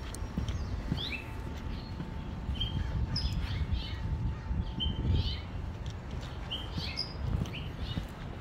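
Small songbirds chirping repeatedly, short quick chirps, some sliding up or down in pitch, over a steady low rumble.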